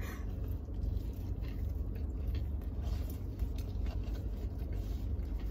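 Two people chewing bites of burger, with faint wet mouth sounds and small rustles over a steady low rumble in a car cabin.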